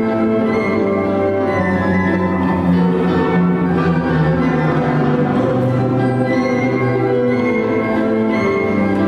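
School string orchestra playing a waltz, bowed violins, cellos and basses sustaining notes over a moving bass line.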